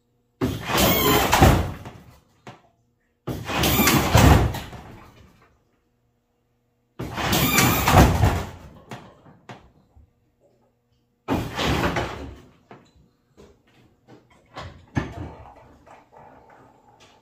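The 1991 Chevy S10's lowrider hydraulic suspension being cycled from the switches: four loud bursts of about two seconds each, some three to four seconds apart, each starting sharply and dying away. A run of lighter clunks and knocks follows as the front of the truck settles down low on its new hopping coils.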